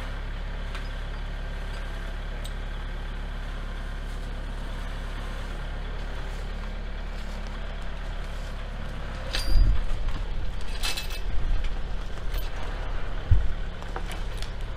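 Compact tractor's diesel engine running steadily at a low, even hum. About nine seconds in it turns louder and uneven, with a couple of sharp clanks.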